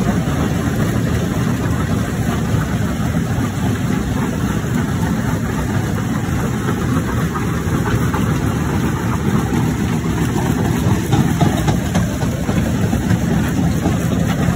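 Mobile jaw crusher running with a steady low drone while a large rock slab grinds in its jaw, with one brief louder knock about 11 seconds in.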